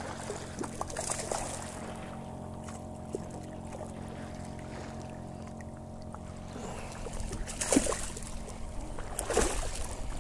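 Hooked sea bass splashing and thrashing in shallow water as it is drawn in to the shore by the line, with a few splashes near the start and louder, rougher splashing in the last few seconds. A steady low drone runs underneath.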